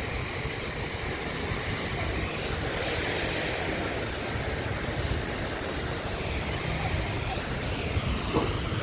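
Large fire burning: a steady rushing noise with a deep rumble underneath, and a brief sharper sound about eight seconds in.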